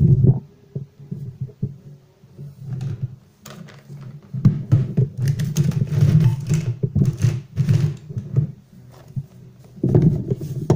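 Handling noise from a Volvo electronic throttle module being worked on and set down on a table: a run of clicks, knocks and scrapes, thickest in the middle and again near the end, over a low steady hum.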